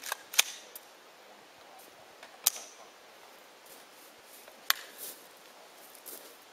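Airsoft rifle firing three sharp single shots about two seconds apart, with a few fainter clicks near the start.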